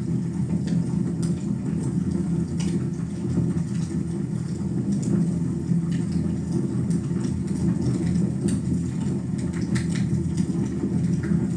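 Wood fire burning in a fireplace: a steady low rushing rumble with scattered, irregular crackles and pops.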